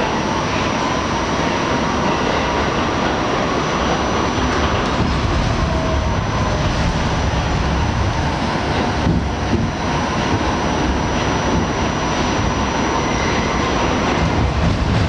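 Interior of an R68 New York City subway car in motion: the steady loud rumble and rattle of the car's wheels and trucks on the rails.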